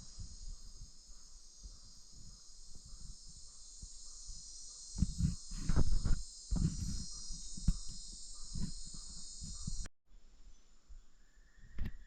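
Rainforest insect chorus: a steady high-pitched buzzing drone, with irregular low thumps and rustles in the middle. The drone cuts off abruptly about ten seconds in and comes back at a slightly different pitch.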